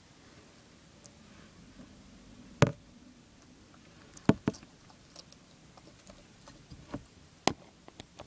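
Bearded dragon biting and chewing a worm: a handful of sharp, irregular clicks and crunches, the loudest about two and a half and four seconds in.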